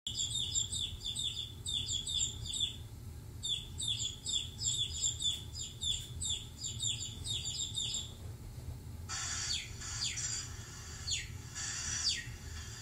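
Baby chick peeping: a rapid run of short, high, falling chirps, several a second, lasting about eight seconds. After a short break, a different, harsher series of wider sweeping calls follows.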